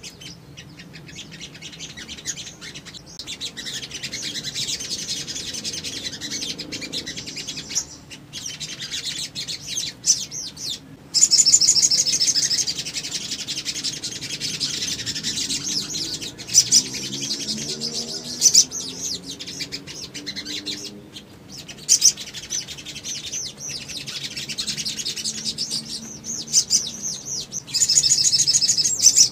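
Sunbirds chirping and twittering in high, rapid trills, with loud bursts of fast trilling song about eleven seconds in and again near the end.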